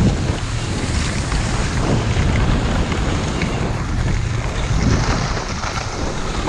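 Wind buffeting the microphone, a loud, steady, rough rushing that rises and falls a little in strength.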